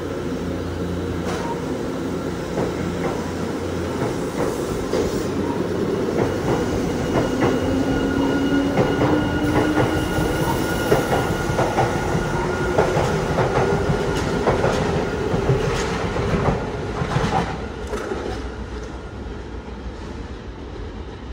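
Nankai 7100 series electric train pulling out of the station. The motor whine rises slowly in pitch as it picks up speed, and the wheels click repeatedly over the rail joints as the cars pass. The sound fades near the end as the train moves away.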